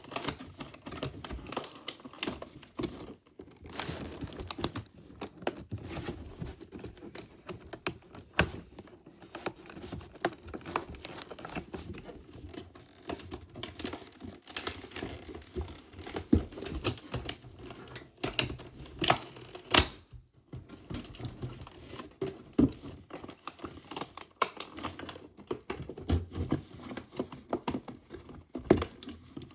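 Irregular clicking and tapping of small plastic pieces being handled, with occasional crinkling of plastic wrappers, as miniature toy grocery items are unpacked.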